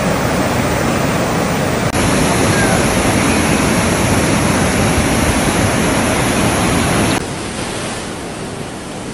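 Rushing floodwater: a loud, steady rush of torrent water. It changes abruptly twice, at about two seconds and about seven seconds, and is quieter after the second change.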